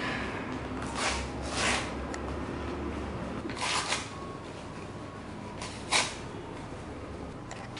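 Kraft-paper envelope being torn apart by hand: several short rips and rustles of paper, the sharpest about six seconds in, over a low steady hum.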